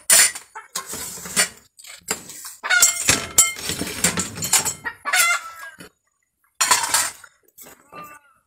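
Chickens clucking and squawking in a run of loud, sharp bursts that stop about six seconds in.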